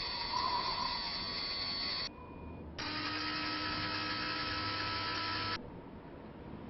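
Sound effect of a small motorised mechanism running steadily, stopping abruptly about two seconds in, then after a short pause running again for about three seconds and cutting off.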